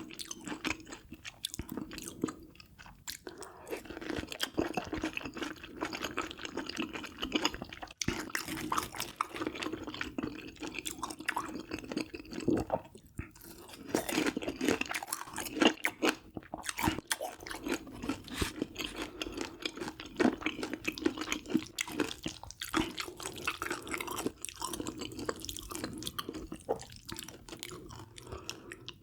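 A person eating close to the microphone: steady chewing and crunching, with many small wet clicks and crackles, pausing briefly a few times.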